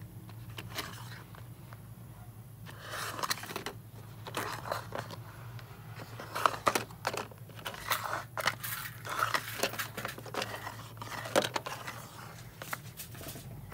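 Plastic drawers of a small-parts organiser sliding in and out, with the glass eyes inside clicking and rattling against the plastic: many scattered clicks and short scrapes over a low steady hum.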